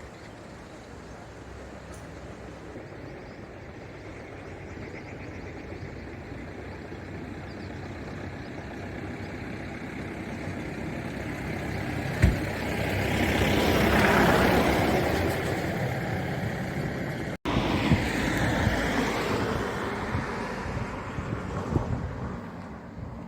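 A road vehicle's rushing noise that builds up, is loudest about two-thirds of the way through, then eases off. It is broken by a sharp knock shortly before the peak and a brief cut-out just after it.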